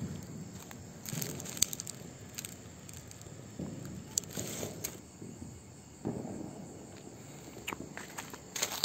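Quiet handling noises: a few light clicks and rustles of a steel container and newspaper being arranged, with a lighter struck about four seconds in to light the paper under a sutli bomb firecracker. No bang.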